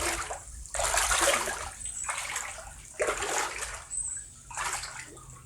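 Floodwater sloshing and splashing in about five separate surges, roughly a second apart.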